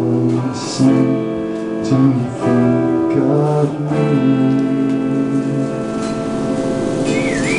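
Closing bars of a live acoustic song: strummed acoustic guitar with singing, settling about halfway through onto a final held chord that rings on.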